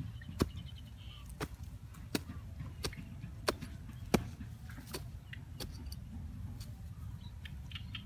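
A hatchet chopping into soil to dig a hole: about eight sharp strikes, a little faster than one a second, then a few lighter ones near the end.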